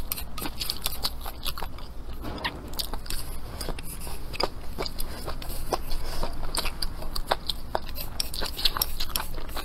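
Close-up chewing of stir-fried velvet antler mushrooms and rice, with many small, irregular crisp clicks as the food is bitten and chewed.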